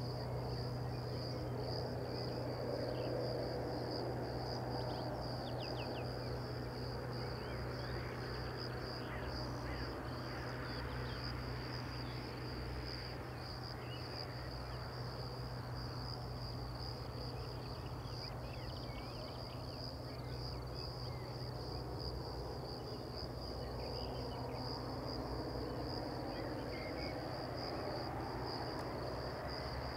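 Insects chirring in a steady, fast-pulsing high trill, with a steady low hum and a broad rumble beneath and a few short bird chirps.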